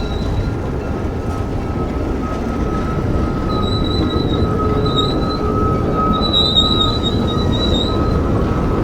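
Train rolling on the rails with a steady rumble and high wheel squeal, the squeal getting stronger from about halfway through.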